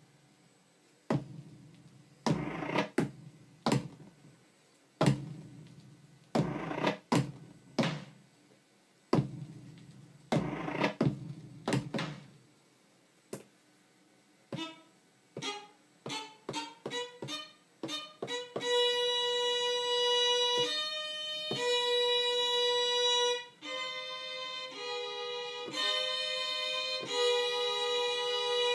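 Native Instruments Maschine MK2 sampler playing electronic music. First come separate percussive hits that each ring and die away, then a quickening run of shorter hits. From about eighteen seconds in, held, string-like notes change pitch every second or two.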